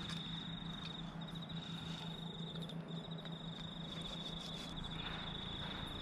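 An insect trilling steadily at a high pitch in fast pulses, breaking off briefly twice, with a few faint taps of a knife on a wooden cutting board.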